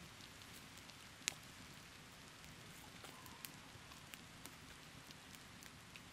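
Small wood campfire crackling faintly, with scattered sharp pops and one louder pop about a second in.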